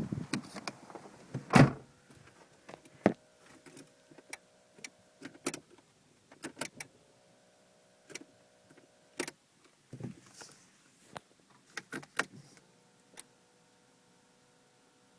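Clicks and knocks in a Renault Clio 1.2 16V as the ignition key is worked, the loudest about a second and a half in, with no sign of the engine cranking: the starter motor is not turning. A faint steady electrical tone runs underneath and shifts pitch twice.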